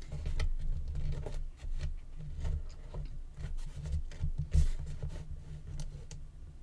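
Chipboard panels handled and pressed into place against a chipboard box on a table: soft taps, light scrapes and low bumps of board on board and tabletop, with a firmer knock about four and a half seconds in.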